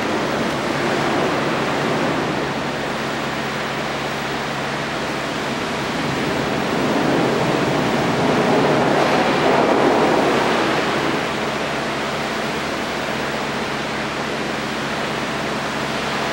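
Steady rushing noise with a faint low hum, swelling a little about halfway through.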